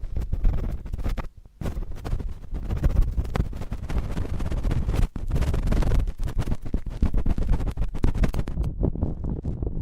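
Cotton swabs scratching and rubbing directly on a microphone: a close, dense scratchy rustle with a heavy low rumble and many small clicks, breaking off briefly about a second and a half in and again around five seconds.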